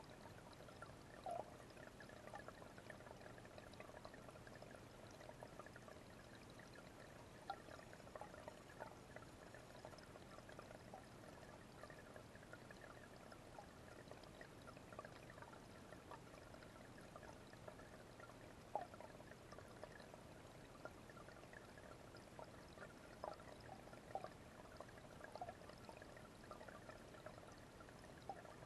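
Small garden waterfall spilling steadily into a fish pond, faint, with a continuous patter of small splashes and now and then a louder drip.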